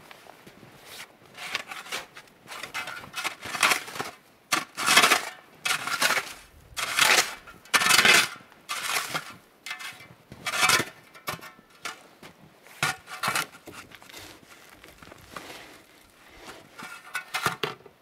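Snow being cleared by hand off the snow-covered logs of a log wall: a quick series of short brushing strokes, irregularly spaced, loudest around the middle.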